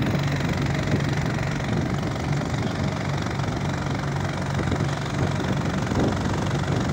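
Engine of a wooden boat running steadily under way, a low even drone with the wash of water along the hull.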